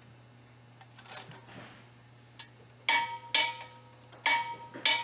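A torque wrench on a long socket extension tightening the sweeper drum's retaining nut gives four sharp metallic clicks, each with a short ringing tail, in the second half.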